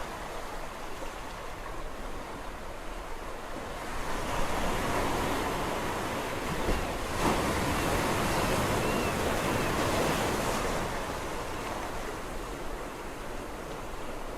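Sea waves: a wave swells and breaks about four seconds in, its wash of surf rising to a peak and then easing off again over several seconds.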